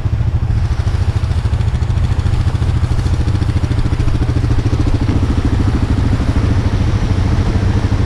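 ATV engine running steadily at low revs, with an even low pulsing throughout.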